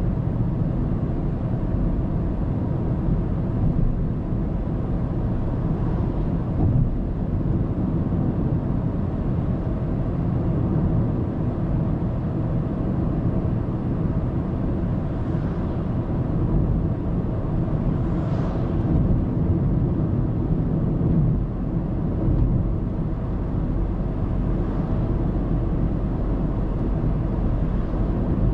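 Steady low road and engine rumble of a car cruising on an expressway, heard through a dashcam inside the cabin, with a few brief swells of hiss, the clearest about eighteen seconds in.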